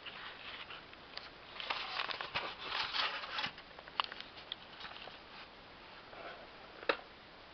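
Hands working a plastic and latex zombie-head bust to open its hinged head: a burst of rustling and scraping, then scattered light clicks and one sharp click near the end.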